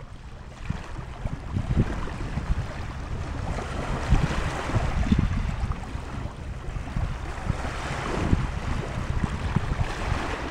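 Small waves washing onto a pebble beach, with wind buffeting the microphone in irregular low rumbling gusts because the recorder's wind-cut filter is switched off.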